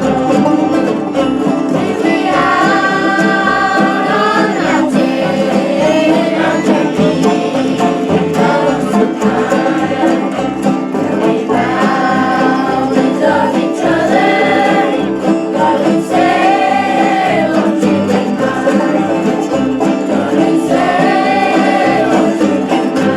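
Bluegrass band playing and singing, with several voices in harmony in long sung phrases over a steady beat.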